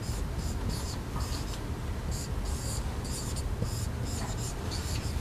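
Marker writing on a whiteboard: a string of short, quick scratchy strokes as words are written, over a steady low room hum.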